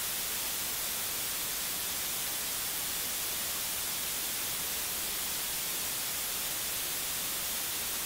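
Steady, even hiss like static, brightest in the high end, with no other sound standing out and no change in level.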